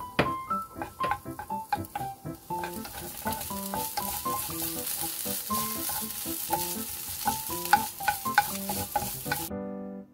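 Diced onion sizzling in a nonstick frying pan while a wooden spatula stirs and scrapes it around. The sizzle builds after a couple of seconds and cuts off abruptly near the end.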